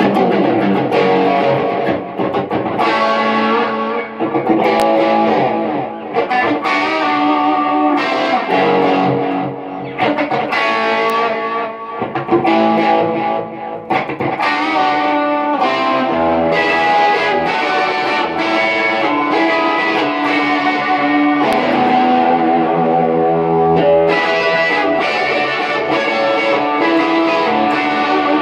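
Overdriven electric guitar, a Stratocaster-style guitar played through chorus, delay, a Boss Blues Driver and a Colorsound Power Boost into amplifiers: a lead line of sustained notes with chorus and delay repeats.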